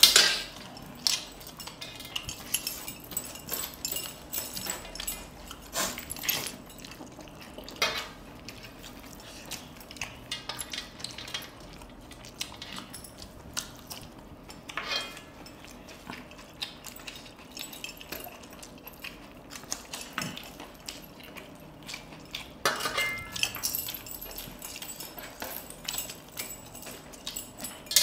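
Hands eating rice and curry from stainless steel plates: scattered clinks and scrapes of fingers and metal rings against the plates, coming irregularly with a few louder clusters.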